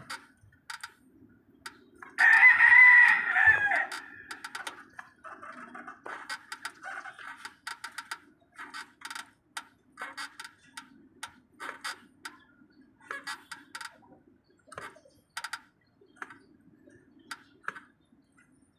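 A rooster crowing once, loud, starting about two seconds in and lasting about two seconds. Around it come many short clicks and knocks over a faint steady hum.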